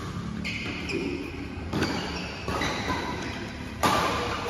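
Badminton rackets hitting a shuttlecock back and forth in a doubles rally: several sharp hits, echoing in a large hall.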